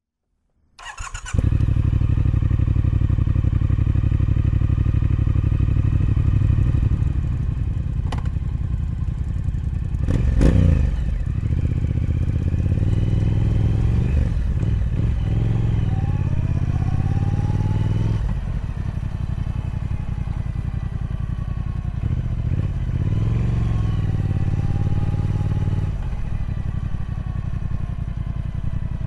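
Triumph Speed Twin 1200's parallel-twin engine on its stock exhaust starting up about a second in, then idling with a steady throb. There is a sharp blip of the throttle about ten seconds in, and two spells where the engine note rises and falls.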